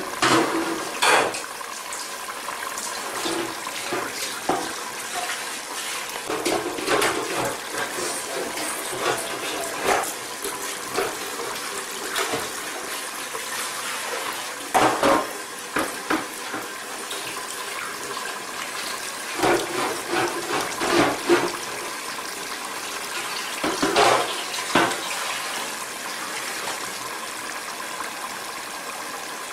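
Grated carrot halwa mixture simmering in liquid in a steel wok on a gas burner, a steady bubbling hiss. A metal spoon scrapes and knocks against the pan now and then, most clearly about 1, 7, 15, 20 and 24 seconds in.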